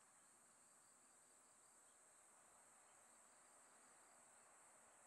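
Near silence with a faint, steady high hiss.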